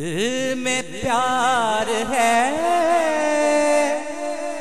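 A man singing a naat into a microphone, drawing out the words in a wavering, ornamented line, then holding a long steady note in the second half.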